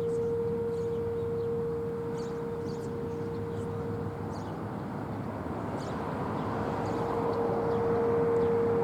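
Outdoor tornado warning siren heard from a distance, holding one steady pitch. It fades down through the middle and swells back louder near the end.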